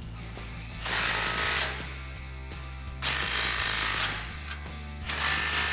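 Milwaukee Fuel cordless ratchet running in three bursts of about a second each, driving a 15 mm socket to tighten the nut on an exhaust band clamp.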